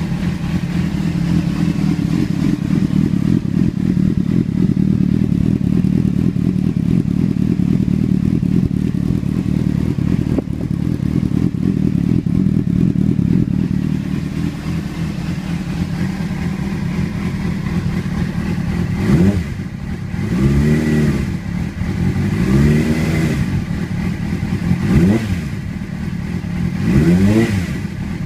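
Honda CBR600RR's inline-four engine idling steadily through a Scorpion exhaust with its baffle removed. In the second half it is revved in five quick throttle blips, each rising and falling in pitch.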